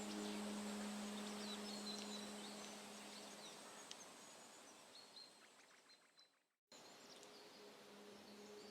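Faint birds chirping over quiet outdoor ambience, while a sustained low musical drone fades out over the first few seconds. The sound cuts to silence for a moment about six and a half seconds in, then the birdsong returns and the drone comes back near the end.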